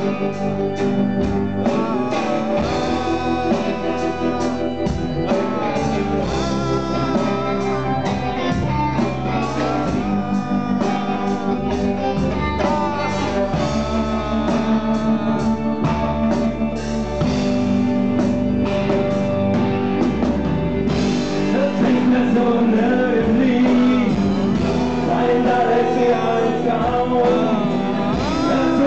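Live band playing an instrumental passage of a song: electric guitar over keyboard and drums, continuous and loud, building somewhat about halfway through.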